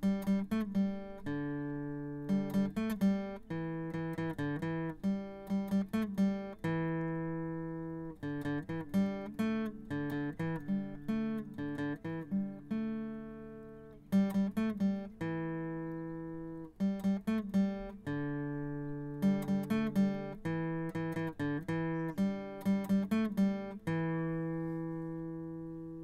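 Solo acoustic guitar music: plucked notes in quick runs, with chords left ringing out between phrases.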